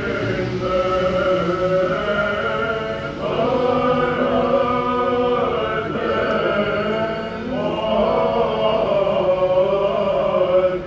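Orthodox church choir chanting liturgical music a cappella. The chords are held in three phrases, with brief breaks about three seconds in and seven and a half seconds in.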